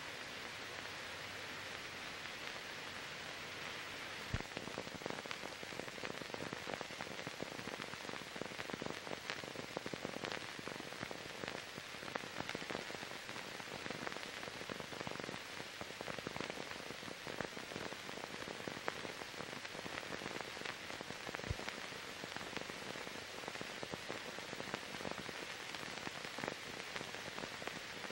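Steady hiss with many small crackles and clicks, thicker from about four seconds in: the noise of a film transfer that carries no recorded sound.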